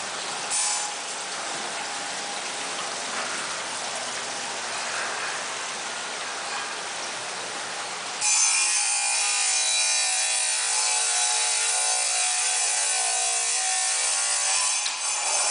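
Water from an indoor waterfall splashing steadily into its stone basin. About eight seconds in, the sound jumps suddenly louder and brighter.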